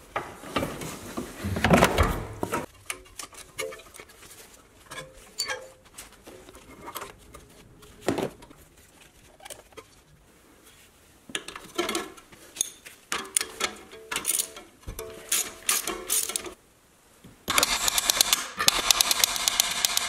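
Hand tools working on a car's front suspension: scattered metallic clicks and knocks of wrenches, bolts and parts being handled. Near the end comes a few seconds of rapid, even ratchet-wrench clicking.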